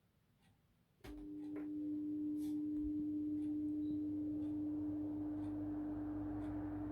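Rowenta VU5740 fan switched on with a click about a second in, its motor at once giving a loud, steady zooming hum on one pitch as the rush of air builds up over the next few seconds. The owner suspects the noise comes from the fan's electric drive and asks whether it is normal.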